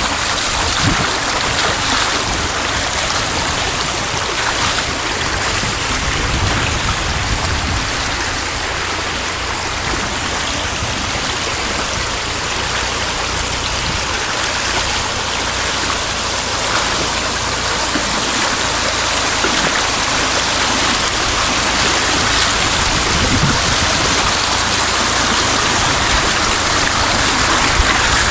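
Stream water rushing steadily, an even loud hiss with no break.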